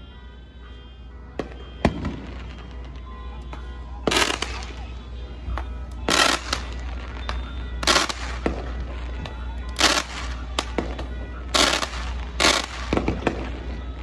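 Aerial fireworks bursting in a series: two sharp pops early, then a loud, brief crack about every two seconds from about four seconds in.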